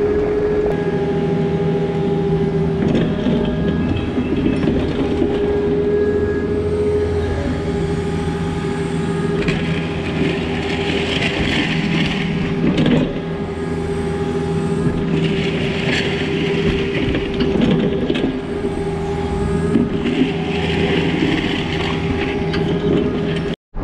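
Takeuchi TB260 mini excavator's diesel engine running steadily at working revs, with three spells of a higher hiss in the second half as the machine works.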